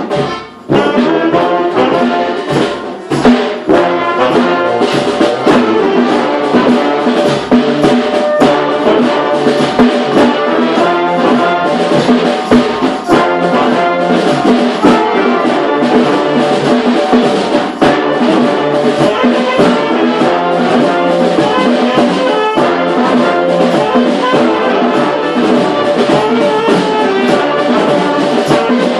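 A community street brass band playing a cumbia together, with horns such as trombones and trumpets over a steady beat of percussive hits.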